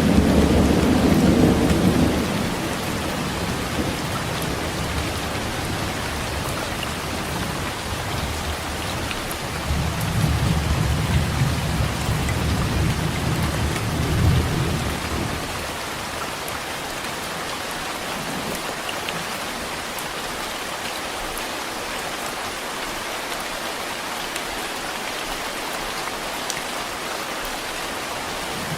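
Heavy, steady downpour with rolling thunder: a deep rumble at the start and another from about ten seconds in that lasts around five seconds, after which only the rain goes on.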